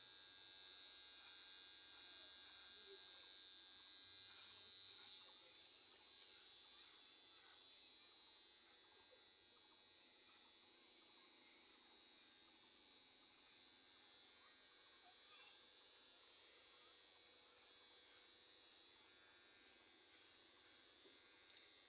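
Faint, steady, high-pitched buzz of an electric hair clipper, dropping in level about five seconds in.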